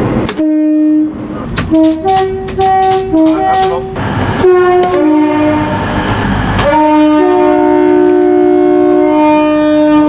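Train air horn sounding a run of short blasts that step between a low and a high note, then a long blast of about three seconds in which both notes sound together.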